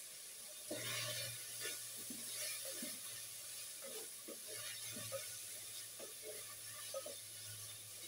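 Liver with onions and tomatoes frying in oil in a pan, a quiet steady sizzle with irregular scrapes and knocks of a spoon stirring it.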